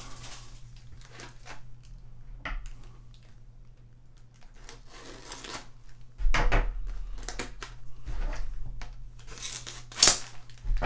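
A Yu-Gi-Oh booster box's packaging being handled, crinkled and torn open: irregular rustles and crackles, with louder stretches of handling about six seconds in and again near the end.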